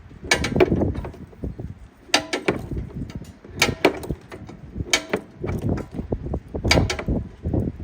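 Ratchet wrench with a 5/8 spark plug socket worked in short strokes, clicking every second or two as a new spark plug is tightened, with handling knocks in between.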